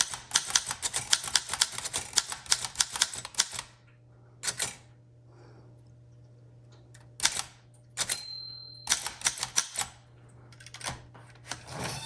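1914 Corona 3 typewriter being typed on: a quick run of type bars striking the platen, about six a second, then a pause and scattered single keystrokes. About eight seconds in, a brief high ringing tone sounds, the carriage's margin bell.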